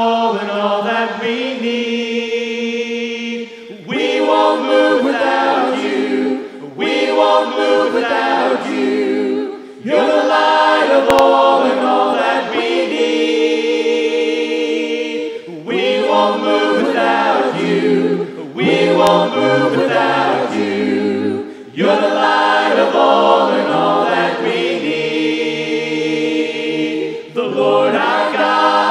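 Worship team and congregation singing a hymn a cappella, with no instruments, in phrases a few seconds long separated by short breaks. The singing starts in unison and opens into harmony parts partway through.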